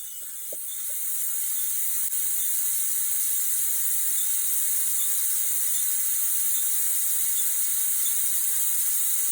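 Propane gas hissing steadily out of the open bleeder valve of a 1-gallon refillable propane cylinder while it is being filled, building over the first second or two and then holding level.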